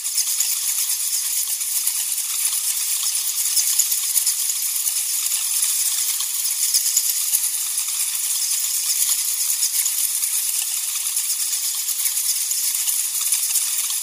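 A colony of bats chittering: a dense, steady, high-pitched crackle of many tiny clicks and squeaks.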